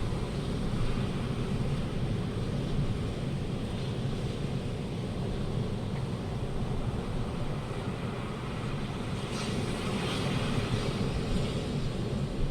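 Strong gusty wind rumbling on the microphone, with a rushing hiss that swells about two-thirds of the way through.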